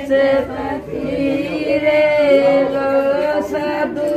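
Group of women singing together in long, drawn-out notes.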